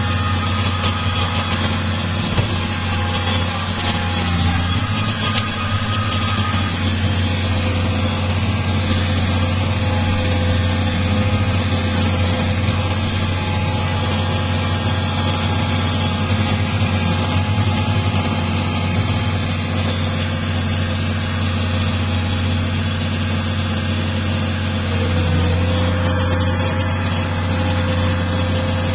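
New Holland TS115A tractor running steadily under load, driving a New Holland 790 forage harvester that is chopping corn: a constant low engine drone with a steady whine over it.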